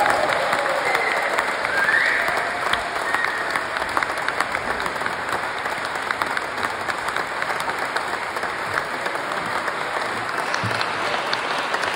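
Concert audience applauding, with a few shouts from the crowd in the first couple of seconds.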